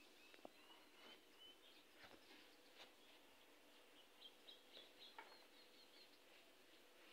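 Near silence, with faint bird chirps in the background, including a quick run of short high notes about four to five seconds in, and a few faint scratching strokes from marking the fabric.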